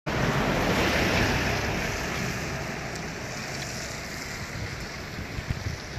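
Wind buffeting the microphone, a low rumble under a rushing hiss that is loudest in the first two seconds and then eases.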